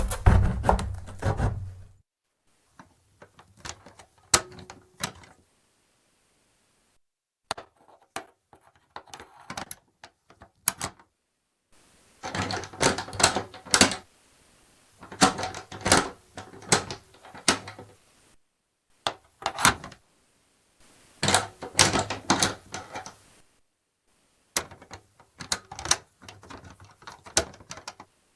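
Old wooden cellar door with an iron handle being opened and closed, heard as rapid clattering clicks and wooden knocks. It comes in about seven short separate takes with dead silence between them.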